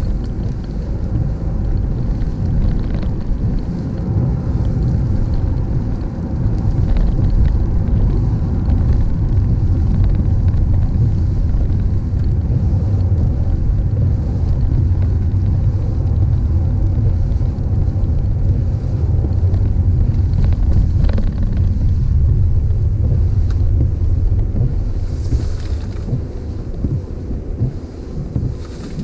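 Car driving: a steady low rumble of engine and tyres on the road, easing slightly near the end.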